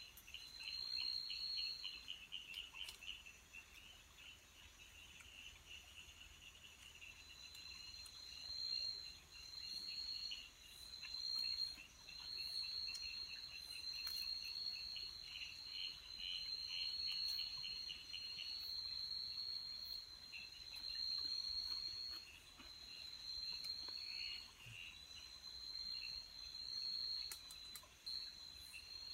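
Night insects calling in tropical jungle: a high trill, each about a second long, repeats over and over with short gaps, and a lower, rapidly pulsing trill runs under it for much of the time.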